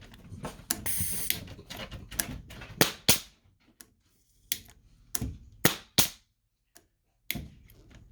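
Paslode nail gun dry-firing: several sharp shots, irregularly spaced, with a short hiss about a second in. It fires but drives no nail, which the owner puts down to a broken driver blade.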